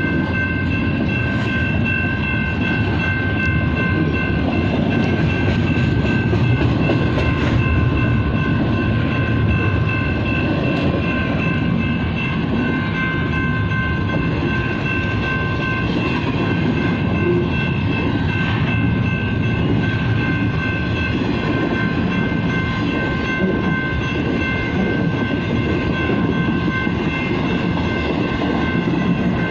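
BNSF double-stack freight train rolling past with a steady, loud rumble of wheels on rail. A high ringing of several steady tones runs over the rumble and fades in and out now and then.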